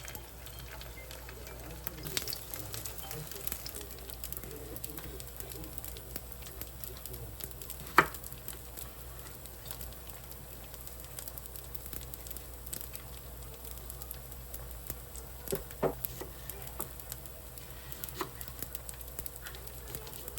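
Food sizzling in a frying pan, a faint steady crackle with scattered ticks. A sharp knock comes about eight seconds in, and two more come close together near sixteen seconds.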